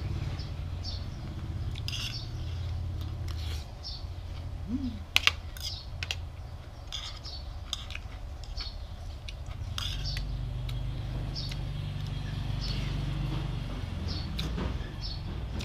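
Spoon and fork clinking and scraping against a plate while eating, with small scattered clicks and one sharp clink about five seconds in, over a steady low hum.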